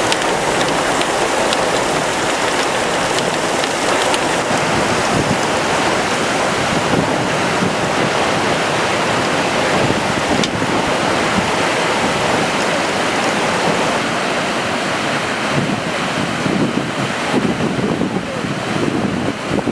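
Heavy rain and rushing floodwater: a loud, steady rushing noise, with wind buffeting the microphone in gusts near the end.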